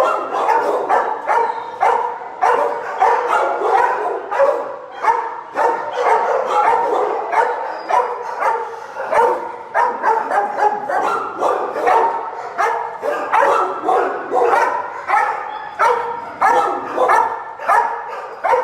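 Many shelter dogs barking over one another in their kennels, a continuous din of overlapping barks, several a second.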